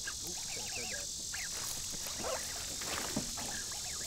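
Steady high-pitched insect drone, with a few short scattered knocks or splashes, the loudest a little after three seconds in.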